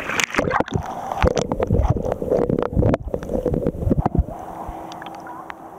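Lake water splashing and sloshing over a camera held at the surface next to a swimming dog, in irregular bursts with low thumps. From about four seconds in the sound turns quieter and muffled as the camera goes under water.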